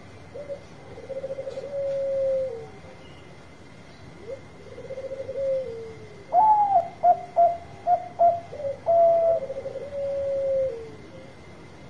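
Bangkok-bred zebra dove (perkutut) singing its cooing song. Each phrase opens with a short note, runs into a purring trill and ends in a drawn-out falling tone. About six seconds in comes a burst of quick, sharp coos, the loudest part, before another purring phrase.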